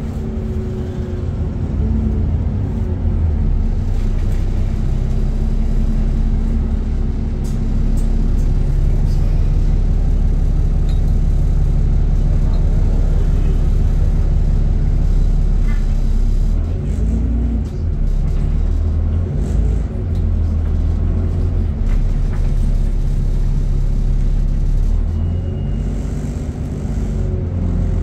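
Alexander Dennis Enviro 400 double-decker bus heard from inside the lower deck while under way: a steady low engine drone with road rumble, the engine note stepping up and down a few times as the bus changes speed.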